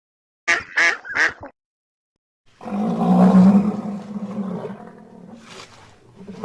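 Three short animal calls in quick succession, then, after a brief silence, a long, loud, deep animal call that fades toward the end.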